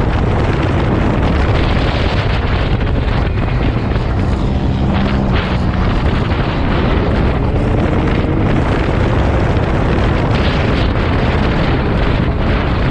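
Side-by-side UTV engine running hard at speed, heard from on board, with heavy wind buffeting the microphone; the engine note drifts up and down a little as the throttle changes.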